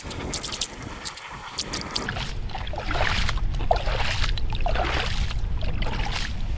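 Hatchet chopping at the edge of a hole in lake ice, each blow cracking the ice and splashing the slushy water in the hole, about two to three blows a second from about two seconds in. A steady low rumble runs underneath.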